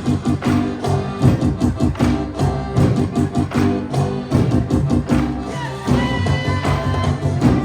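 Live music from a stage performance, with sustained melody lines over frequent, sharp percussion strikes.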